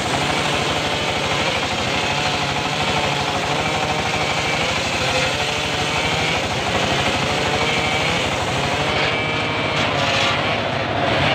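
Homemade circular saw rig (gergaji serkel rakitan) running steadily: a low engine drone with a whine above it that wavers in pitch.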